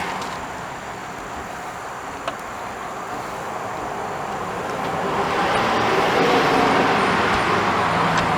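Highway traffic noise: a steady rush of passing vehicles that swells louder in the second half as a vehicle goes by, with one brief click about two seconds in.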